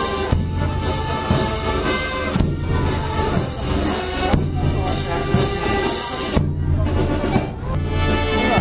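Brass marching band playing a march: trombones and other brass over held low notes, with steady drum beats about once a second.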